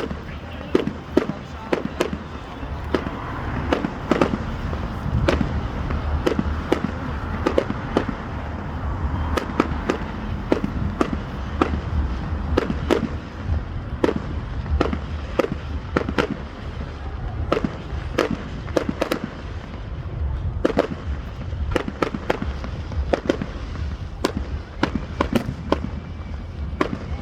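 Fireworks display going off: many sharp bangs and crackles at irregular intervals, several a second, over a continuous low rumble.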